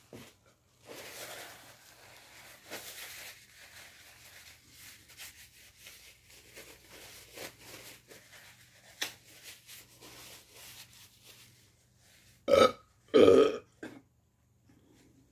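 Paper towels rustling and tearing as hands are wiped, then two loud burps in quick succession near the end.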